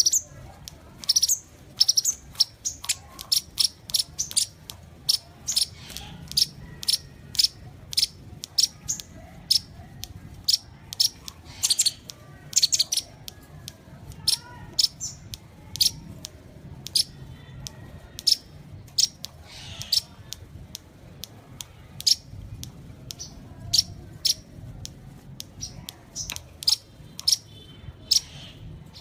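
Sunbird calling with rapid, sharp, high chirps, about two or three a second, over a faint low hum.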